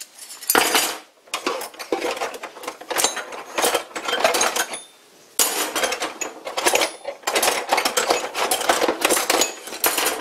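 Steel calipers and dividers clinking and clattering against one another as a handful is laid down one after another on a wooden workbench. There is a brief lull about five seconds in.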